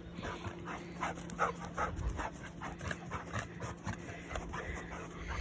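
A dog panting in quick, even breaths, several a second.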